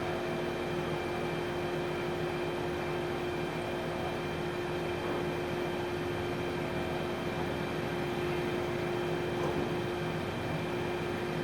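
Heavy machinery running steadily: an even mechanical hum with a constant tone that does not change.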